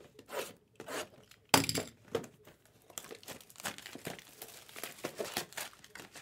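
Clear plastic shrink-wrap being torn off a 2023 Bowman Chrome Sapphire trading-card box and crinkled in the hands. There is a sudden loud rip about a second and a half in, then steady crackling crinkling.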